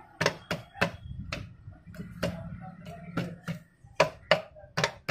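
Sharp, irregular knocks on a Bajaj Discover 125 engine's crankcase half as it is tapped down to seat onto the other half, about ten knocks in five seconds.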